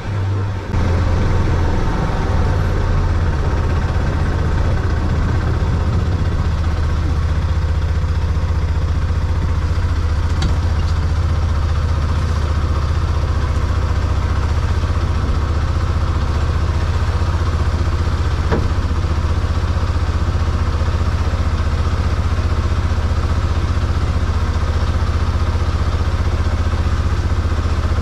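Arctic Cat side-by-side's engine running steadily, with a strong low hum.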